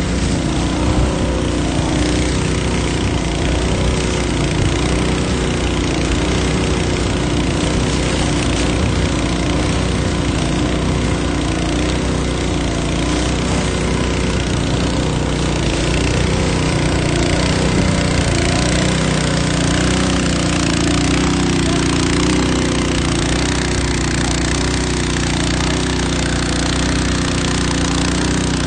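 Pump engine running steadily at a constant speed, driving water to the fire hoses, over a dense hiss of hose spray and burning.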